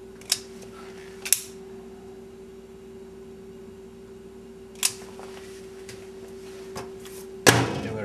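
A few sharp clicks over a steady low hum, then the microwave oven's door is shut with a loud clunk near the end.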